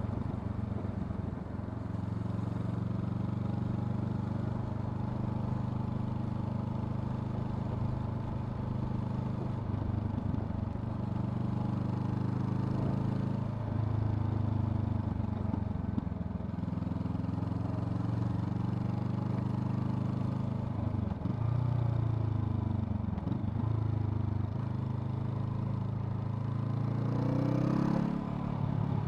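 Honda CL500's 471 cc parallel-twin engine running under way. The engine note holds fairly steady, dips briefly several times, then rises sharply near the end.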